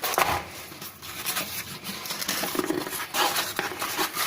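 Cardboard box being handled and opened: irregular rustling and scraping with small knocks.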